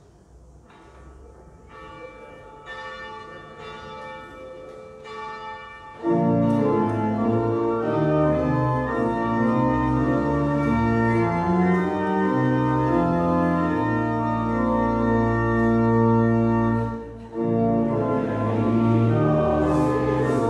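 Church organ playing held chords: it starts quietly, with notes building one on another, then comes in at full volume about six seconds in, with a short break about three-quarters of the way through before the chords resume.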